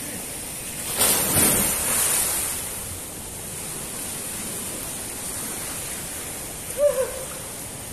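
Two people jumping into a swimming pool: a loud splash about a second in, then water sloshing as it dies away over a second or so, over a steady hiss. A short vocal shout near the end.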